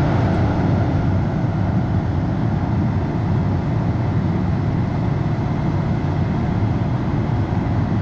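John Deere S780 combine's engine running while the machine stands still, a steady low rumble.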